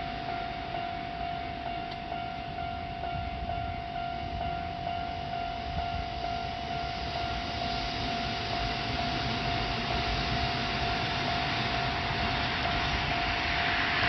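Japanese level-crossing warning bell ringing in an even, repeating pattern while a Kintetsu train approaches, its rumble growing louder toward the end.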